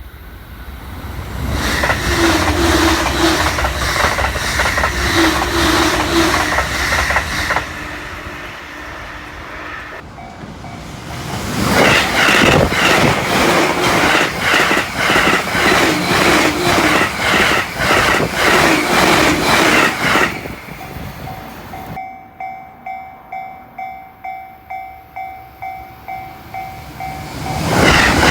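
Express trains passing at high speed on the Joban Line: two long passes, each a rush of wheel and air noise with rapid rail-joint clicks, and a third beginning near the end. Between them a level-crossing warning bell rings in a steady ding-ding rhythm.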